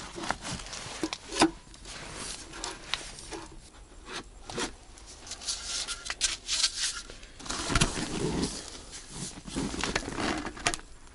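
Handling noise of camping gear being set up: irregular rustling and scraping with scattered short clicks and knocks.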